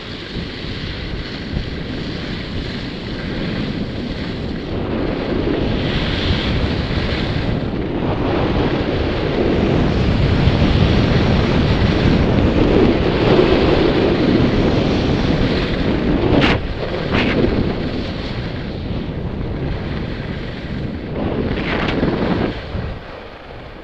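Wind rushing over a helmet camera's microphone during a fast downhill ski run, with the scrape of edges on groomed snow. It grows louder through the middle, has a few sharp scrapes, and eases off near the end.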